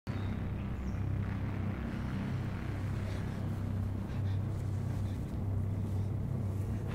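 A low, steady rumbling drone.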